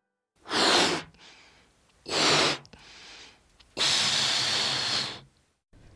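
Hissing sound effect of gas rushing from a cylinder into a balloon, in three bursts: two short ones and a last, longer one of about a second and a half.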